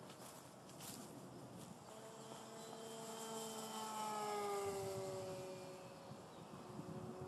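The electric motor and propeller of an E-flite Yak 54 Carbon Z RC plane whining as it flies past. It grows louder toward the middle, then its pitch drops and settles lower as it moves away.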